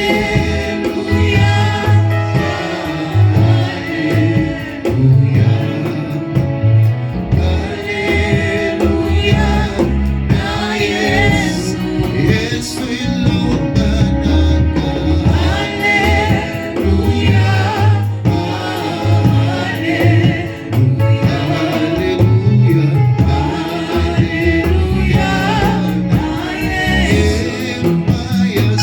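Gospel worship music: a choir singing over a band, with a deep bass line pulsing in a steady rhythm underneath.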